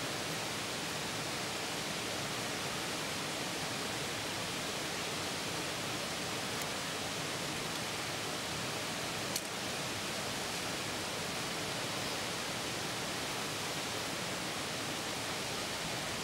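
Steady, even rushing noise with no pitch or rhythm, with a single faint click about nine seconds in.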